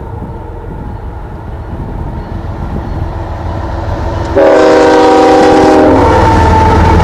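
Canadian Pacific freight train approaching with a low rumble that grows louder. About four seconds in, the locomotive's horn sounds one chord-like blast, held about a second and a half. After the horn the train stays loud as it runs close by.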